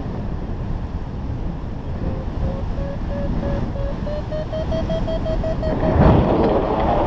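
Wind rushing over the microphone of a paraglider in flight. From about two seconds in, a variometer beeps: short tones, a few a second, creeping up in pitch and coming faster, the sign that the glider is climbing in lift. Near the end the wind noise grows louder.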